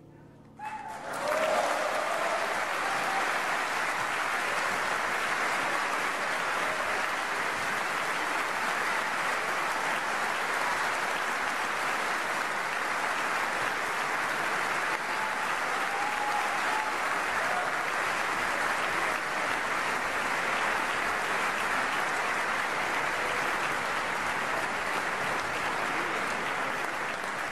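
Concert audience applauding, starting suddenly about a second in as the last cello note dies away, then a steady, dense clapping.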